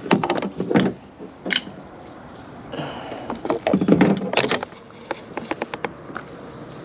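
Irregular knocks, taps and clatter aboard a fishing kayak, with a short rush of noise in the middle and a run of quick clicks near the end.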